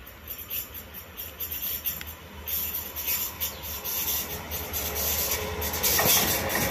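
A train approaching on the rails, its wheels clicking over the track and growing steadily louder. A thin wheel squeal comes in near the end.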